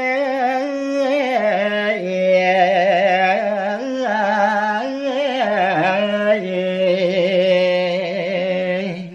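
A male voice singing a Balinese gaguritan tembang line without accompaniment: long held notes with a wavering, ornamented melisma that step down and up in pitch, the phrase ending near the end.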